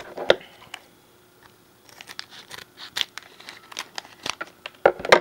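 Trading-card booster pack wrapper crinkling in the hands, then scissors snipping it open, with the loudest snips near the end.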